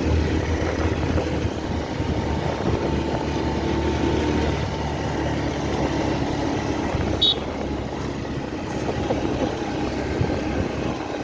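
Motorcycle engine running steadily at a cruising speed of about 40 km/h, heard from the rider's seat over road noise. A short high-pitched sound about seven seconds in.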